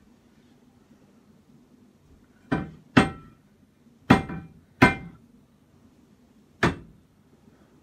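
A baking pan knocked against the kitchen counter five times, each knock sharp with a short ring: the pan is being tapped to shake out loose flour after flouring it for a cake.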